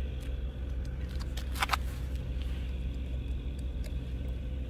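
An engine running steadily with a low, even hum, and a few light clicks about a second and a half in.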